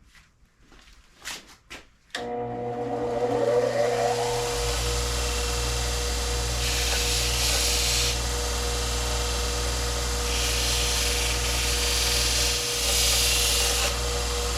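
A 2x42 benchtop belt grinder switches on about two seconds in, rising in pitch as its motor spins up, then running steadily. Twice a steel axe bit is held to the moving abrasive belt, giving a loud grinding hiss: first for about a second and a half, then for several seconds near the end.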